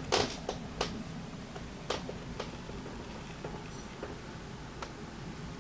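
Irregular sharp taps and clicks, about six of them, the loudest at the start and then thinning out to single ones, over a low steady background hum. No thunder is heard.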